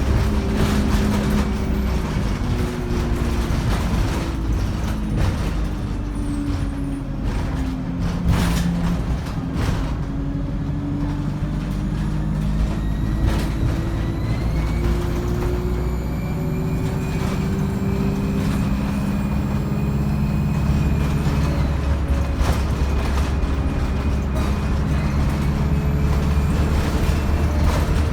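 Alexander Dennis Enviro 200 single-deck bus heard from inside while under way. Its diesel engine drones steadily, with turbo and Voith three-speed automatic gearbox whine rising and falling in pitch as the bus accelerates and eases off. Scattered rattles and knocks come through the cabin.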